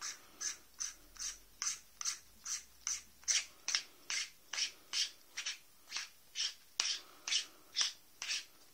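Sliding zoom head of an Ultrafire LED torch being pushed in and out to retract and extend the beam, making a short scraping rub a little over twice a second.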